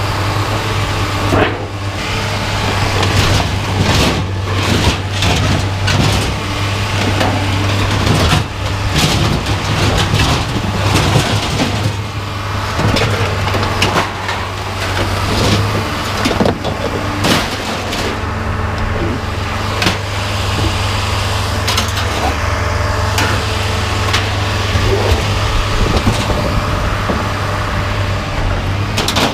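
An engine runs steadily underneath repeated, irregular clanks and bangs of scrap metal being pulled out and thrown down as a load of scrap is unloaded.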